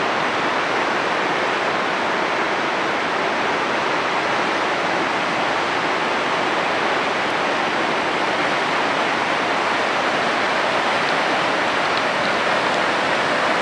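Lava Falls, a big Colorado River rapid, rushing steadily: a constant whitewater noise that does not rise or fall.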